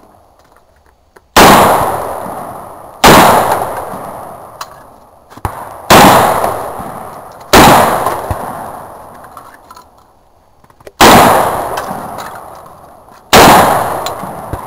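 Six gunshots fired one at a time, a second and a half to three and a half seconds apart, each loud crack trailing off slowly.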